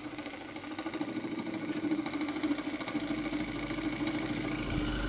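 Märklin 4106 live steam model engine running steadily under steam: a fast, even patter of exhaust beats and mechanical rattle over a steady hum. A low rumble joins about three seconds in.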